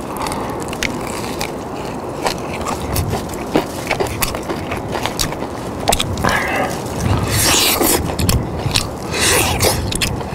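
Crispy Nene Chicken fried chicken being bitten and chewed close to the microphone: the batter crunches in many sharp, irregular cracks.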